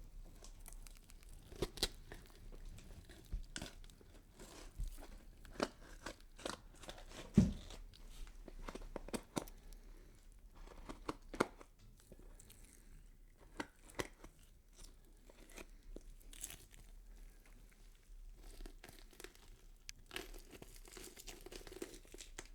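Sound effect of skin being cut and peeled away: an irregular run of small tearing and crackling sounds with scattered clicks, and one louder thud about seven seconds in.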